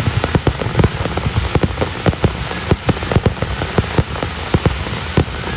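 Fireworks going off in a rapid, dense run of sharp pops and bangs, several a second, over a continuous crackle, as in a show's finale.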